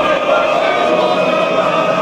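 A large crowd of male football supporters chanting a song together, loud and steady.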